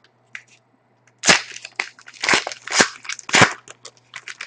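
Foil wrapper of a Panini Pinnacle hockey card pack being torn open and crinkled: four sharp rips and crackles between about one and three and a half seconds in, with lighter rustles around them.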